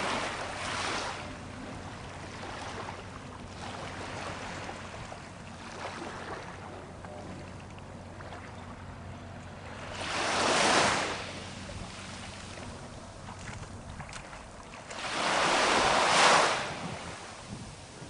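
Ocean surf breaking on a beach: a steady wash of waves, with louder crashes about ten seconds in and again around fifteen to seventeen seconds.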